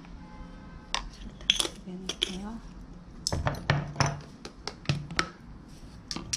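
About a dozen sharp clinks and knocks of a glass jar and wooden spoon against a glass bowl, as sugar is spooned into a bowl of seasoning sauce.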